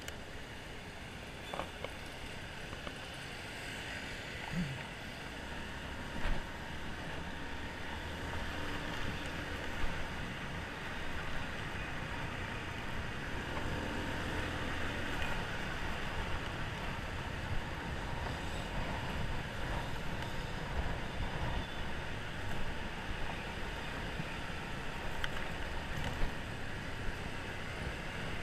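Honda motor scooter running as it rides through traffic, with a steady rush of wind and road noise over the microphone and a few brief knocks.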